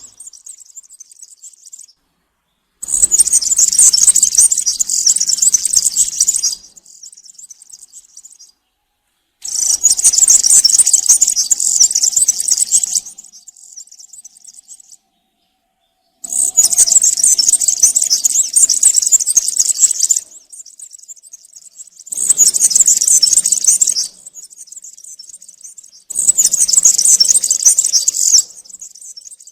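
European serin singing in five high-pitched bursts of about two to four seconds each, with short pauses between.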